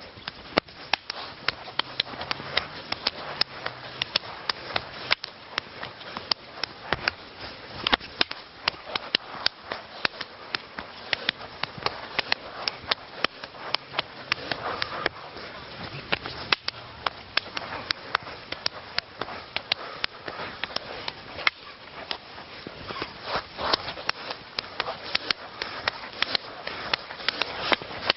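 Wooden arnis sticks clacking against each other in a rapid, uneven run of sharp strikes, several a second, as two fighters trade strikes and counter-strikes in a one-stick tapi-tapi drill.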